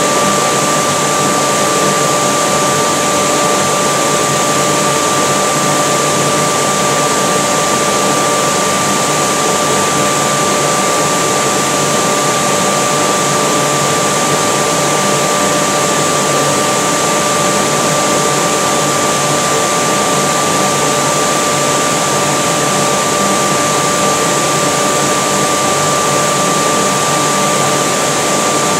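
Forge blower pushing air into a coal forge fire: a steady rush of air with a constant whine over it, the blast driving the fire while two pieces of rebar are heated toward welding heat.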